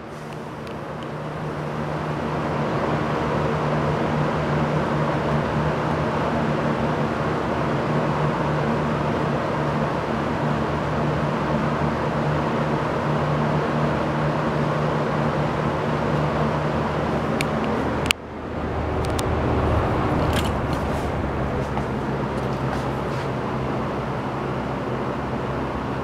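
Kmart box fan running: it builds over the first couple of seconds to a steady whoosh of air with a low hum. About two-thirds of the way through there is a sharp click and a brief dip, and the fan settles at a different speed with a lower hum.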